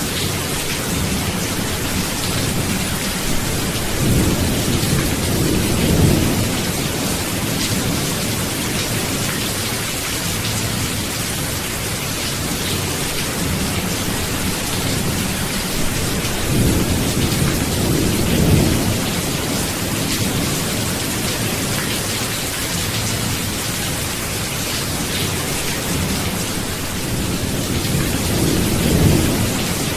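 Steady heavy rain hissing, with low rolls of thunder swelling and fading three times: about four seconds in, past the middle, and near the end.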